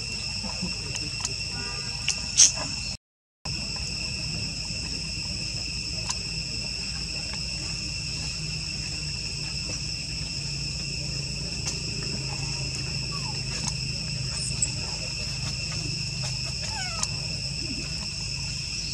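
Steady high-pitched insect chorus with a low hum beneath, and a few faint short squeaks from baby macaques. A sharp click about two and a half seconds in, and the sound cuts out briefly just after three seconds.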